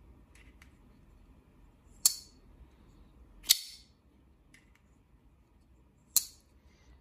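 Microtech SOCOM Elite Tanto Manual folding knife being flicked open and closed: three sharp metallic snaps, each with a brief ring, as the blade locks open or drops shut, with a few faint ticks of the blade and handle being handled in between. A really good-sounding action.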